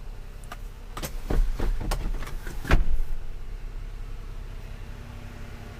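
Rear seatback of a 2018 Jeep Wrangler JL Unlimited being folded down: a run of clicks and knocks from the latch and hinge, ending in a heavier thud about halfway through as the seatback lands flat.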